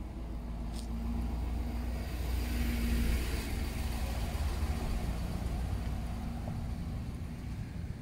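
A pickup truck driving past close by: engine rumble and tyre noise swell to a peak about three seconds in, then fade.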